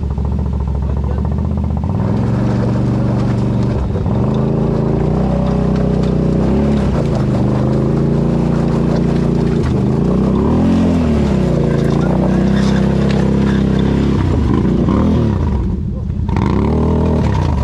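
ATV engine running under load on a trail, its pitch climbing and falling as the throttle is worked on and off several times. The engine note drops briefly near the end, then picks up again.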